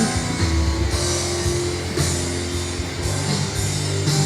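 Band music with drums and guitar and a heavy bass, played loud through a church sound system's loudspeakers.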